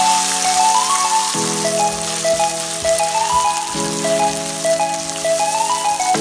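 Tomato and onion sauce sizzling in a pan as it is stirred, under background music of held chords with a stepping melody that change chord about a second and a half in and again near four seconds.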